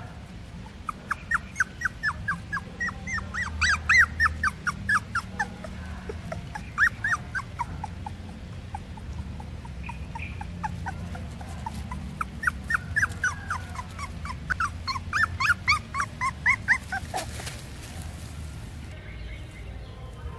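Young puppy crying: a rapid series of short, high-pitched whimpering yelps, several a second, in two long bouts with a pause between.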